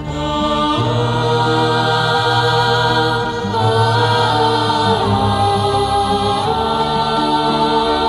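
Background music: a song with long held melody notes that slide in pitch, over sustained accompaniment.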